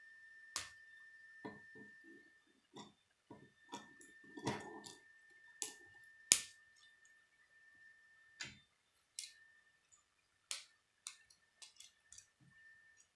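K'nex plastic rods and connectors clicking and snapping together as they are fitted by hand, a dozen or so sharp irregular clicks with the loudest about six and a half seconds in, and some handling rustle between them. A faint steady high whine sits underneath.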